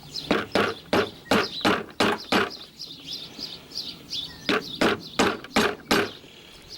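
Sharp tapping on the stuck plates of an M&W tractor hand clutch, trying to work a stuck plate free. The taps come about three a second in two runs, with a pause of about two seconds in the middle.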